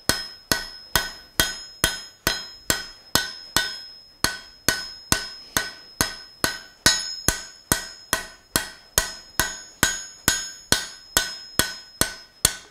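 Hand hammer striking red-hot iron on an anvil in a steady rhythm, about two and a half blows a second, each blow with a ringing note. The smith is breaking the edges of the hot bar. The blows stop near the end.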